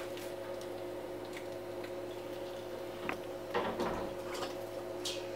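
Light clicks and taps of metal tongs against a frying pan as deep-fried Pop-Tarts are turned and lifted out, with a small cluster of taps a little past the middle, over a steady low hum.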